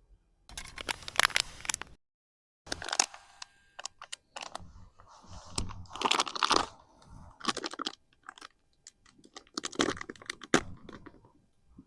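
Irregular crisp crunching and clicking, in uneven clusters, broken by a brief dead-silent gap about two seconds in.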